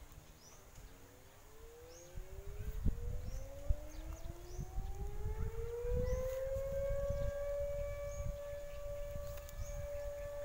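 A siren slowly winding up in pitch over about six seconds, then holding one steady tone.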